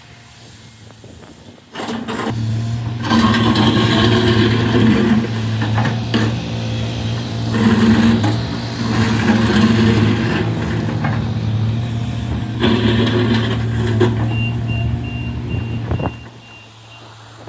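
Diesel engine of heavy road-construction machinery running, a steady low hum that swells and eases in loudness. A reversing alarm beeps evenly near the end.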